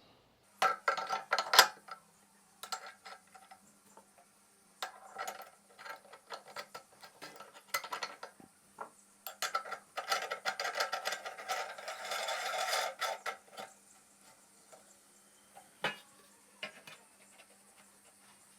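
Stainless steel meat grinder parts being fitted together: irregular metal clinks and knocks, with a longer stretch of scraping and rattling about ten to thirteen seconds in.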